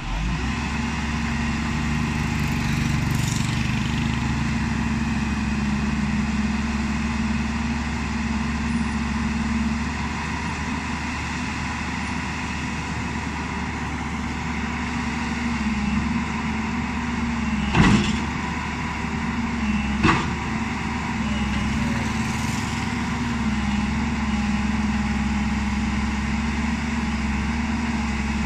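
JCB 205 tracked excavator's diesel engine running steadily under load as the machine climbs onto a flatbed trailer. Two sharp metal clanks come about two seconds apart past the middle.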